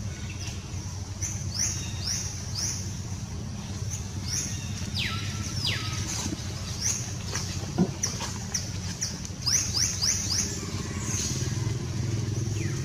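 Birds chirping: many short, high-pitched calls, each sliding down in pitch, repeated irregularly over a steady low motor hum. A single sharp click sounds about eight seconds in.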